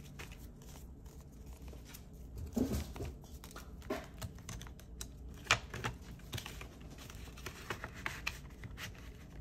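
Paper banknotes rustling as they are handled and slid into a cash-binder envelope pocket, with scattered light clicks and taps as the binder's pages are turned.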